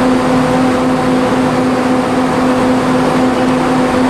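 Southeastern Class 395 Javelin electric multiple unit standing at the platform, its onboard electrical equipment giving a loud, steady hum with several held tones over a constant whirr.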